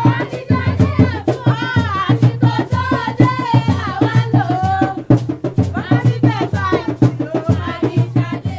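Folk song with hand drums played in a quick, steady beat and voices singing over it.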